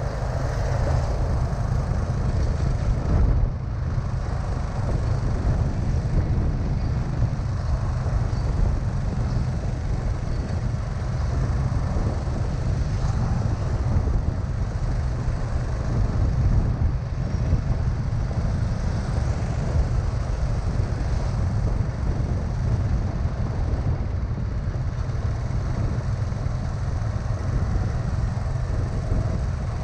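Steady low rumble of wind and road noise while riding in a moving vehicle through city traffic, without a break.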